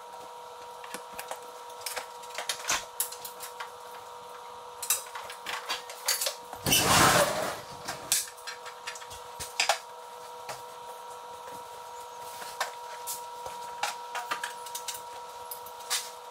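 Scattered clinks and knocks of hand tools and exhaust parts as a snowmobile's exhaust pipe is swapped, over a steady hum. About seven seconds in, a loud rushing burst lasts about a second and a half.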